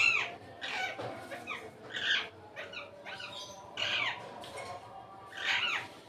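Indian ringneck parrots chattering: a string of short, arching calls, about one or two a second, with louder ones at the start, around two and four seconds in, and near the end.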